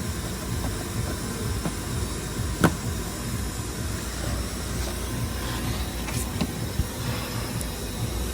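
Screws and a screwdriver clicking against a car's plastic door card as its screws are refitted by hand: one sharp click about two and a half seconds in, then a few faint clicks, over a steady hiss and low rumble.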